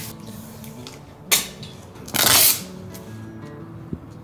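Background music with steady tones, broken by a short sharp noise about a second in and a louder half-second burst of noise about two seconds in, from hands working on a window frame.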